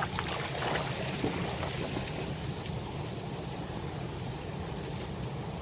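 Splashing in shallow river water as hands grab in it during the first second or two, then the steady rush of the flowing stream close to the microphone.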